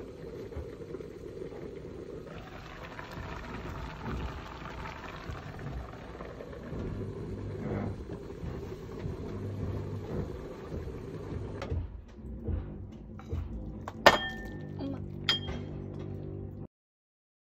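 Stew boiling hard in a lidded frying pan, a steady bubbling hiss. Near the end, a few sharp clinks of a metal utensil against the pan and bowl, then the sound stops abruptly.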